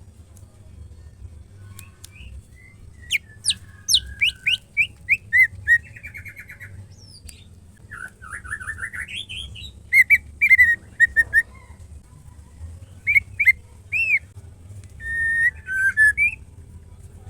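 A female white-rumped shama calling in short separated phrases: a run of quick down-slurred whistles, a buzzy trill, a series of rising notes, then clear whistled notes, with pauses between. A low steady hum runs underneath.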